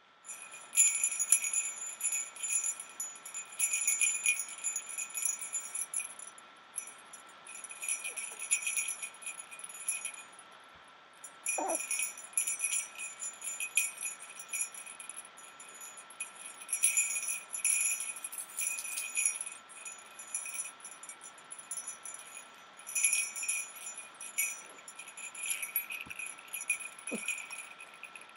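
Jingle bells shaken in irregular bursts of bright jingling, a second or two each with short pauses between, over a faint steady high-pitched tone.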